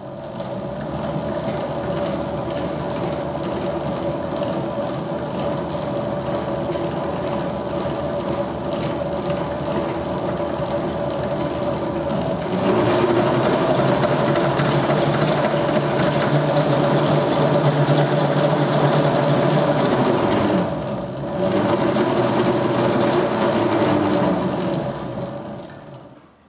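Two small electric motors on a 7¼-inch gauge ride-on locomotive chassis running, driving the axles through roller chains and sprockets with a steady whine. It grows louder about halfway through, dips briefly a few seconds later, then winds down to a stop just before the end.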